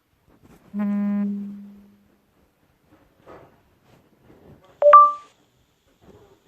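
Samsung Galaxy S7 phone making two short electronic sounds. About a second in comes a low buzz that fades out over about a second. Nearly five seconds in comes a sharp click and a brief higher beep.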